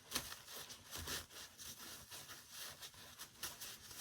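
Faint, irregular rustling and rubbing as a belt is handled and its tail end is tucked into a fabric sleeve.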